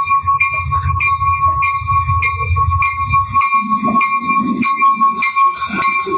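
Locomotive bell ringing steadily, about two strokes a second, as the commuter train departs; a low train rumble underneath stops about three and a half seconds in.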